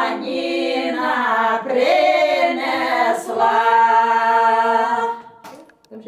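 Four older women singing a Ukrainian folk song a cappella, closing the song on a long held final chord that stops about five seconds in.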